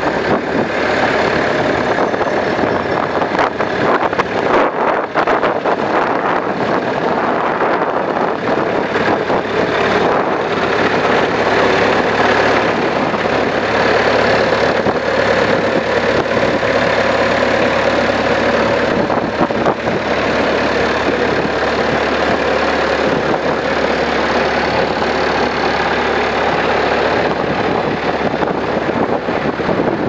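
Bobcat 751 skid steer's diesel engine running steadily, with a few knocks and clatters in the first several seconds.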